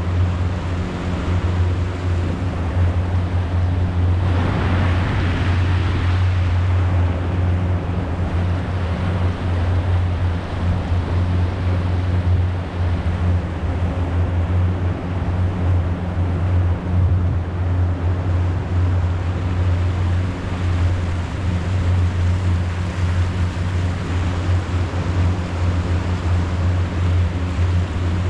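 Boat motor running at a steady drone, with water rushing and wind noise over it; a brief louder swell of splashing about four to six seconds in.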